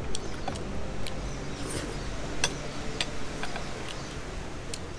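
Cooked blue crab being eaten: scattered sharp cracks and clicks from the shells being broken and handled, over a steady low rumble.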